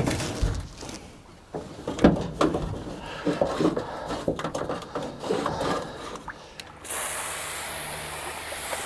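Outboard steering cable being pulled through the boat's hull, sliding with irregular scraping rubs and light knocks. About seven seconds in, an aerosol can of dry PTFE lubricant starts spraying onto the cable in a steady hiss.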